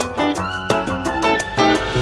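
Upbeat background music with a steady beat and plucked, Latin-flavoured instruments.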